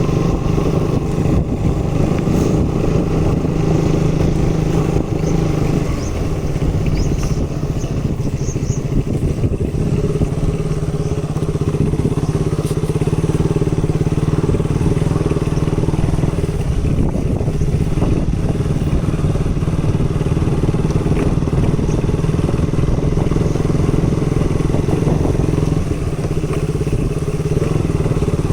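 KTM 200 Duke motorcycle's single-cylinder four-stroke engine running at fairly steady revs under way, with a brief change in the engine note about six seconds in.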